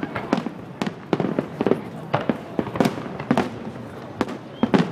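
Fireworks display: a rapid, irregular run of sharp bangs from bursting aerial shells, about three a second.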